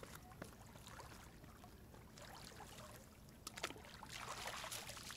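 Faint splashing and trickling of lake water as hands are rinsed at the water's edge, getting a little louder about three and a half seconds in.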